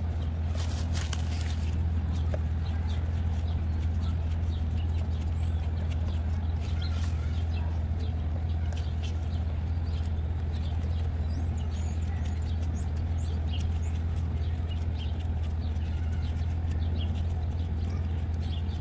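A steady low machine hum, with many short high chirps and ticks scattered over it.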